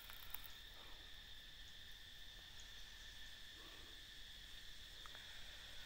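Faint, steady high-pitched drone of an insect chorus.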